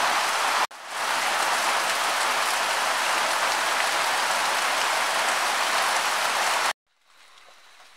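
Heavy rain pouring down in a steady hiss, with a stream of runoff water splashing onto a stump. It cuts off abruptly near the end.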